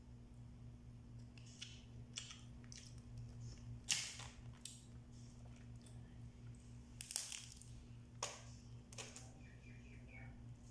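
Shells of boiled blue swimming crabs cracking and snapping as they are broken apart by hand. There are several sharp cracks, the loudest about four and seven seconds in, over a steady low hum.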